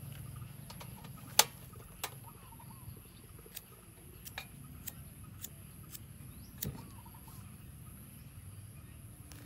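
Sharp metal clicks and knocks as a portable butane camping stove is set down and handled, about eight in all, the loudest a little over a second in. Faint bird chirps in the background.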